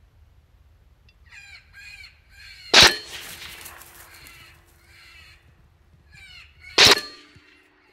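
Two rifle shots about four seconds apart, the first about three seconds in and the second near the end, each a sharp crack followed by a short echo. Between them come repeated short caw-like calls from an electronic predator call.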